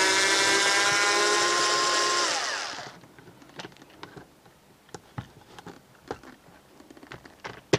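Bosch PSR Select cordless screwdriver running with a steady whine as it backs a screw out of the pressure-washer gun's plastic handle, then winding down and stopping about two to three seconds in. Light clicks and taps of parts and the tool being handled follow, with a sharp click near the end.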